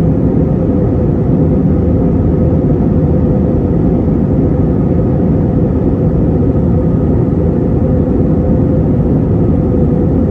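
Steady cabin drone of an Airbus A321-231 in flight: its IAE V2500 turbofans and the rush of air past the fuselage, with a steady hum running through the low rumble.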